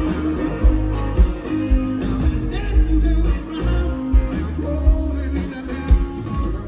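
Live rock band music: a man singing over electric guitar, bass and drums, with a regular kick drum and cymbal crashes about a second in and again near the end.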